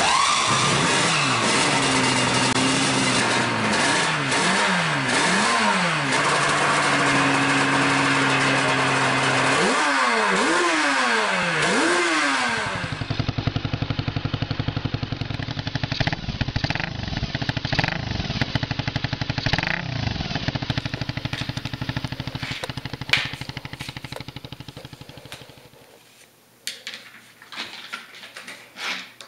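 A 1975 Yamaha TZ750's inline-four two-stroke racing engine is revved again and again, its pitch sweeping up and down with one short steady hold. After a cut about 13 seconds in, a 1994 Honda CB1000's inline-four runs at a steadier, lower note with a few light throttle blips, then dies away a few seconds before the end, leaving faint scratching and tapping of ink work on paper.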